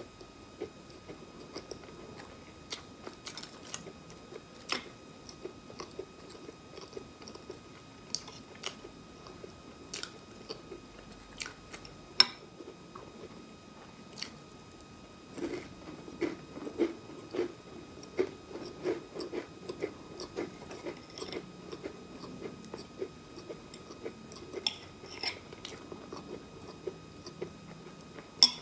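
Close-miked eating of crackers spread with guava jam: crisp bites and crunches with scattered clicks, then steady rhythmic chewing from about halfway. A sharp loud click near the end.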